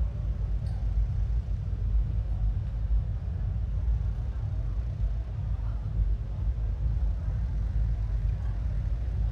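Street ambience outside a nightclub: a continuous heavy low rumble, with only faint, indistinct sound above it.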